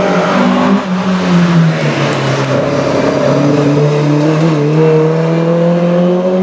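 Classic rally car's engine running hard on a stage. The engine note drops about a second and a half in, then climbs steadily as the car accelerates.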